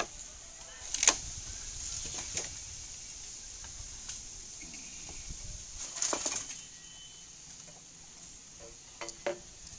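A long bamboo culm is dragged and pushed out through a dense bamboo clump, giving scattered knocks and cracks of bamboo against bamboo. The loudest clatters come about a second in and again around six seconds, with two short knocks near the end.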